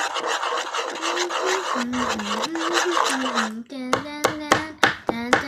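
Steady rasping, rubbing sound of a glue-and-activator slime mixture being stirred in a container. About two-thirds of the way through it gives way to a series of sharp clicks.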